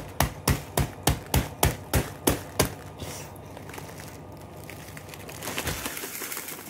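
Rapid, even knocking: about ten sharp strikes at three to four a second, which stop about two and a half seconds in. A crackling rustle starts near the end.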